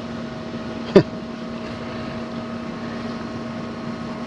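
A steady mechanical hum with two constant tones, like a small motor or fan running, with one short knock about a second in.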